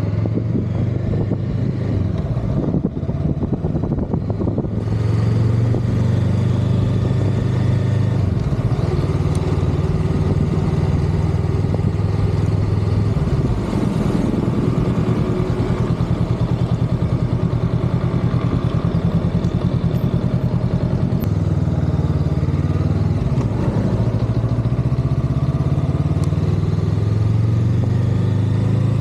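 Honda Rebel 500's parallel-twin engine running as the motorcycle is ridden, heard from on the bike, its pitch dropping and rising several times with the throttle. Wind and road hiss come up about five seconds in.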